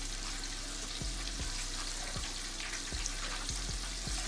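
Mushrooms frying in hot grease in a pan: a steady sizzle with scattered pops.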